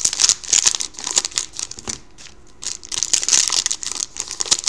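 Foil wrapper of a 2012-13 Panini Certified hockey card pack crinkling and tearing as it is opened by hand and the cards are pulled out, in irregular bursts of crackling with a quieter spell a little before halfway.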